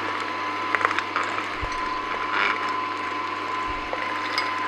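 Angel twin-gear juicer running, its stainless steel gears grinding peanuts into peanut butter through the blank sieve: a steady machine hum, with a few sharp clicks about a second in and a short crackle near the middle.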